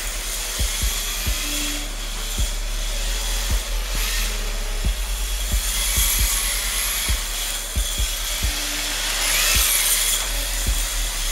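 Hard plastic drift tires of a 1/10-scale RWD RC drift car (MST RMX 2.0) sliding on a concrete floor: a hissing scrape that swells as the car slides through the turns, near the start, about six seconds in and near the end.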